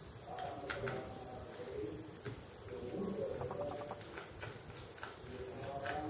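Faint bird calls over a steady high-pitched insect drone, with a few light clicks and a short fast rattle of calls in the middle.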